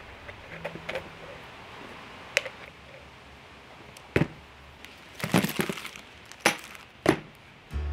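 Metal oil-filter adapter parts and fittings clinking and knocking against each other and the work table as they are handled: a series of separate sharp clinks, with a brief crinkle of plastic parts bags about five seconds in.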